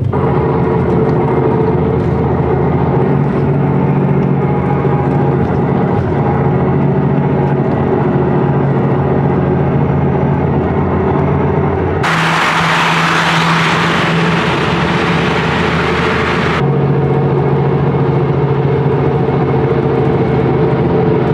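Car engine droning at a steady highway cruise, with no change in pitch. Just past the middle a loud rushing hiss comes in for about four and a half seconds, then cuts off suddenly.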